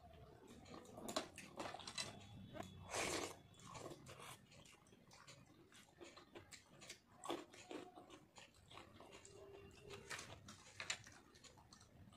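A person eating with their hands close to the microphone: irregular wet chewing and lip-smacking, with the squelch of fingers mixing soaked rice (panta bhat) with dal. One longer, louder smack comes about three seconds in.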